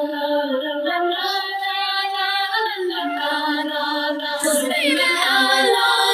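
A song with a high female voice singing long held notes that glide between pitches, with almost no bass underneath.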